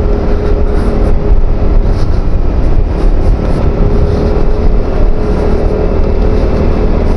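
SYM Husky 150 scooter's single-cylinder engine running at a steady cruise, with a steady hum over heavy wind rumble on the microphone.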